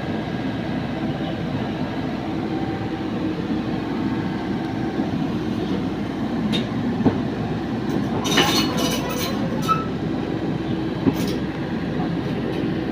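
Excavator running steadily, with a few sharp metallic clanks and rattles in the second half.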